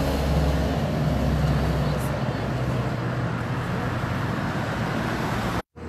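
Road traffic noise: a deep vehicle rumble that fades over the first two seconds, leaving a steady hiss of traffic. The sound cuts out completely for a moment near the end.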